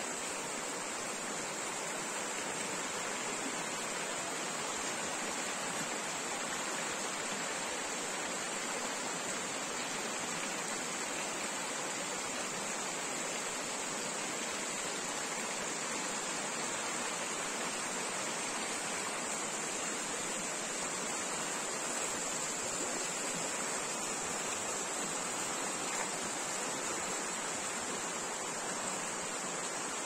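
Forest stream flowing, a steady even rush of water with an unchanging high hiss on top.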